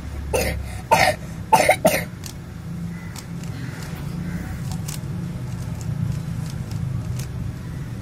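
A person coughs three or four times in quick succession in the first two seconds. After that come faint clicks of a Rubik's cube being turned, over a steady low hum.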